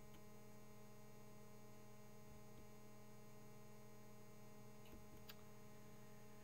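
Near silence: a steady low electrical hum, with two faint clicks about five seconds in.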